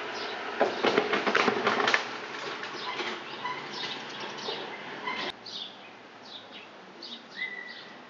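Small birds chirping outside, many short high chirps with a longer held whistle near the end. About a second in comes a loud rustling flurry lasting just over a second, and a sharp click a little past the middle.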